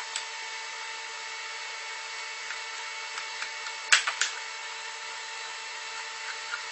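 Light clicks and taps of hand marking tools on a pine board, two close together about four seconds in, over a steady hum with a faint whine.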